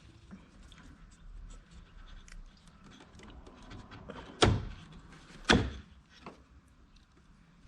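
Hand-tool and parts-handling noise while a car taillight is unbolted and removed: faint clicks and rattles, with two sharp knocks about a second apart a little past the middle.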